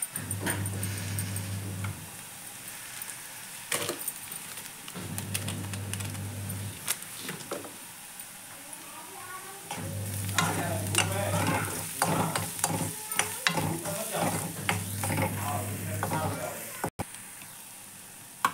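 Steel spoon stirring and scraping chopped onions sizzling in a kadhai, with frequent clinks against the pan that grow busier in the second half. A low hum, likely from the cooktop, switches on and off every few seconds.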